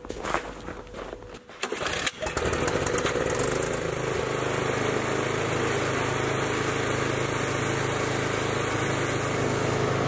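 Small gasoline snow blower engine catching about two seconds in after a few knocks, then running steadily.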